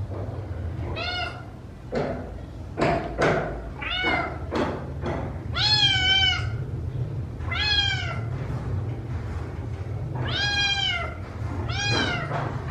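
Kittens meowing again and again, about ten high-pitched meows, some short and some drawn out, over a steady low hum.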